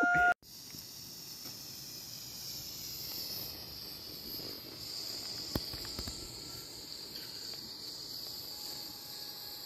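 Steady insect chorus, a continuous high chirring of crickets, after a bird's call that is cut off right at the start. Two soft clicks come a little past halfway.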